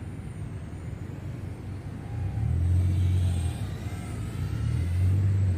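Brushless micro quadcopter's motors whining faintly in flight, their pitch drifting up and down with throttle on a nearly flat battery, under a low rumble that swells twice.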